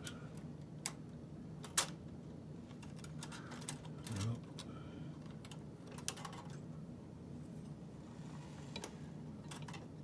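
Scattered light metallic clicks and taps of an Oliver typewriter's steel type bars knocking together as a replacement type bar is worked into its clevis, with the sharpest click just under two seconds in.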